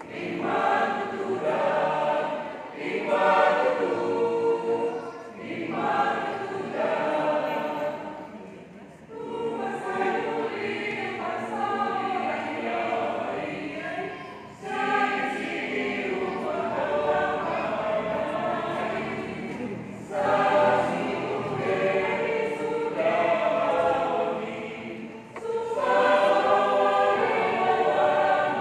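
A group of voices singing together like a choir, in phrases of a few seconds with short breaks between them.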